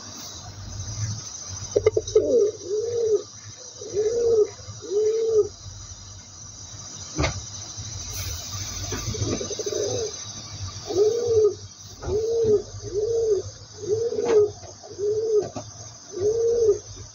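Feral rock pigeon cooing: a run of about four short, arched coos starting about two seconds in, then after a pause a longer run of about eight more. A steady high hiss runs underneath.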